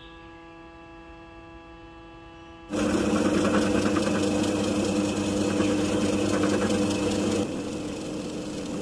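Faint background music, then about three seconds in a bench drill press comes in loud, its twist bit boring through a PVC plastic disc and throwing off shavings, with a steady motor hum under the cutting noise. It eases a little for the last second or so.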